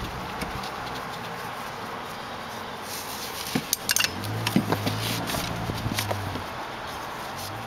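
Metal strap buckles and clips clinking and tapping against a metal crossbar and U-bolt as nylon webbing straps are threaded and pulled tight. The clicks come in a cluster from about three seconds in to past six, with a low hum in the middle, over a steady hiss.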